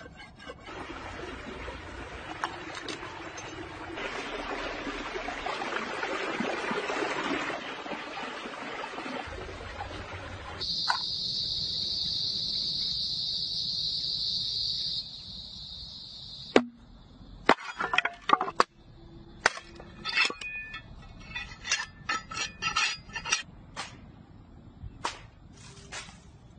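Cleaver blade scraped on a rough stone to sharpen it: a grating hiss lasting about ten seconds. Then a steady high-pitched buzz for about five seconds, followed by a scatter of sharp clicks and taps.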